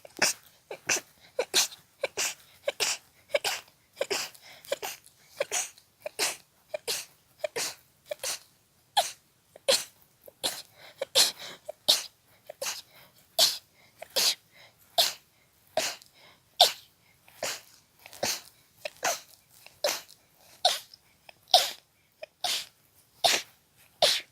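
A person sneezing in a rapid fit of short, sharp sneezes, about two a second, with barely a breath between them.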